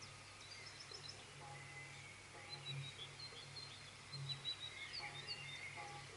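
Faint outdoor ambience of several small birds chirping and calling in short, high notes, over a faint low rumble that swells now and then.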